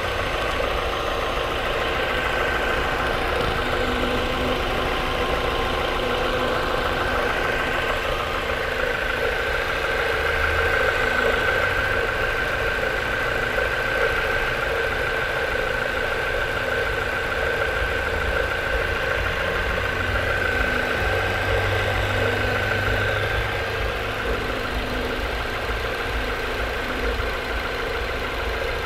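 Ford Mondeo Mk4 engine idling steadily with a continuous extraneous noise from the accessory belt drive, heard as a steady high tone over the engine. The noise comes from a failing belt-drive idler pulley.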